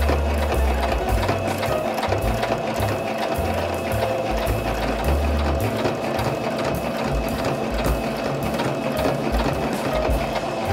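Domestic electric sewing machine stitching a seam at a steady speed, its needle making a fast, even clatter.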